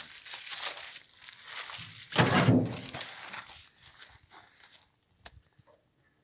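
Rustling, crinkling noise with a heavier thud about two seconds in and a sharp click near the end, after which the sound drops away almost entirely.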